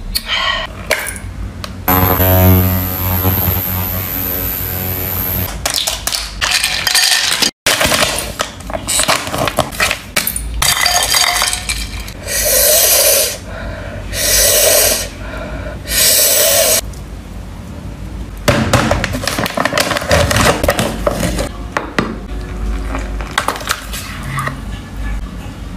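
Hard glass and plastic objects clinking and scraping in a close-miked skincare routine, with three strong bursts of sound in the middle and a stretch of steady tones near the start.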